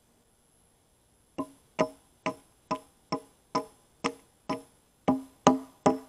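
A log being hammered: about a dozen sharp, ringing wooden knocks at roughly two a second, the last few loudest.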